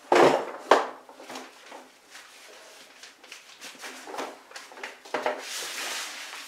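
A loud knock just after the start and a sharp click under a second in, then scattered light knocks and rustling, over a faint steady hum.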